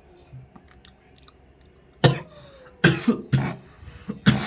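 A man coughing, about five hard coughs in a row starting about two seconds in, after inhaling from a THC vape cartridge.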